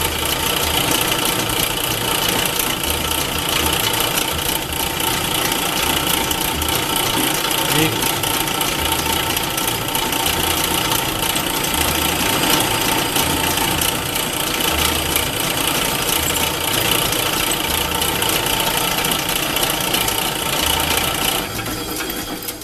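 South Bend 9-inch metal lathe running steadily while a quarter-inch twist drill in the tailstock chuck bores into the end of a spinning shaft. The lathe makes a steady whir with a low throb pulsing about once a second. Near the end the noise falls away as the lathe is shut off.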